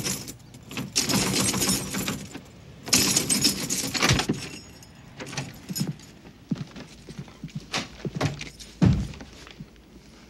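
A ring of keys jangling and rattling in a door lock in three bursts over the first four seconds, ending in a thud. Softer scattered clicks and knocks follow, with another thud near the end.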